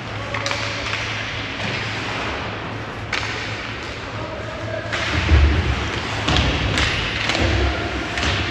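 Ice hockey play heard in an arena: a string of sharp knocks and heavy thuds as the puck and players hit the boards and sticks strike the puck, the loudest thuds about five and seven and a half seconds in. A steady low hum runs underneath.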